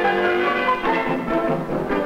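Orchestral music, with many sustained notes moving from one to the next.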